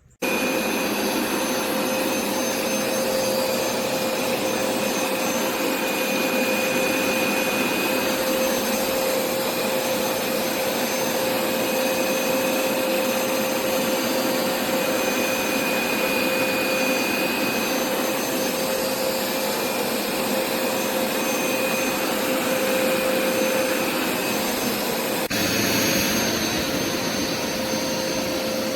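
Hoover Smartwash FH52000 carpet cleaner running: a steady motor and suction noise with a constant whine, shifting slightly in tone about 25 seconds in.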